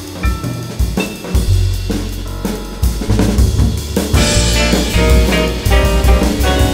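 Live Latin jazz quartet of grand piano, upright bass and drum kit. The drums play separate hits over bass notes, then cymbals come in and the piano plays dense runs about four seconds in.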